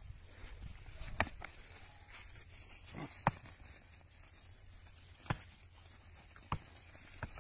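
Rams sparring on a dirt track: about six sharp knocks, spaced one to two seconds apart, over a faint low rumble.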